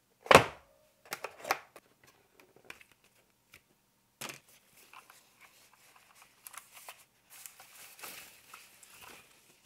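A loud knock, then a few clicks, then scattered rustling and crinkling of packaging being handled.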